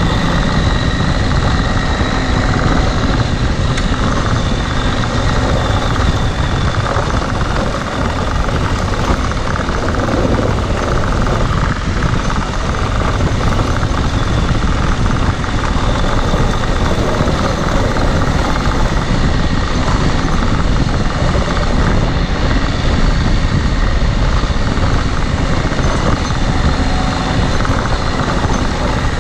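Dual-sport adventure motorcycle riding along at a steady pace: the engine runs with a dense rush of noise that stays even throughout, with no change in revs.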